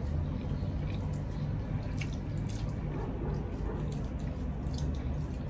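Mouth sounds of eating by hand: scattered wet clicks and smacks of chewing, over a steady low hum.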